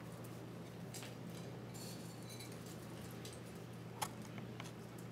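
Crumbled chow mein noodles sprinkled by hand into a baking dish: faint, scattered crackles and patter, with one sharper click about four seconds in.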